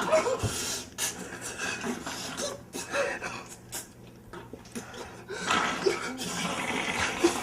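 A person's heavy, irregular breathing and puffs of breath.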